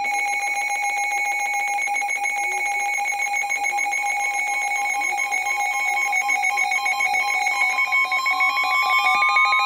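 Emergency Alert System attention signal: a steady, harsh electronic alarm of held tones with a fast pulsing flutter, announcing a new severe thunderstorm warning. Near the end a further tone slides upward in pitch.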